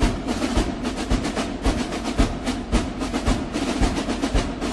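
Background music of marching drums: snare drum rolls over a steady bass drum beat about twice a second.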